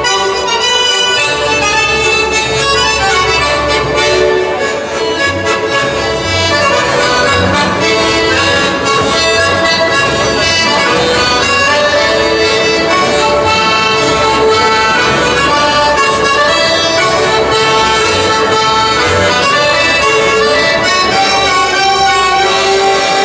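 Live traditional Friulian folk dance music from a small band, an accordion carrying the tune over a double bass, playing steadily at a lively dance tempo.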